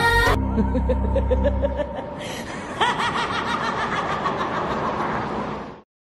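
The close of an electronic music track: the music stops, a low bass note holds for about two seconds, then a laughing voice cackles in quick pulses before everything cuts off suddenly near the end.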